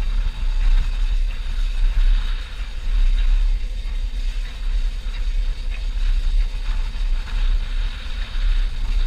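Canadian National 2-8-0 steam locomotive No. 2141 and its passenger coaches rolling past with a steady rumble, mixed with heavy wind noise on the microphone.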